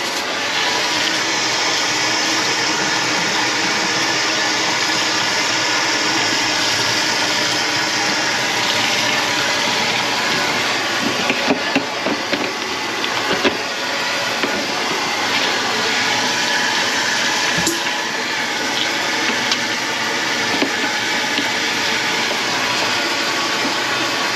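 Water running steadily from the tap into a kitchen sink and down its drain, with a couple of small knocks partway through.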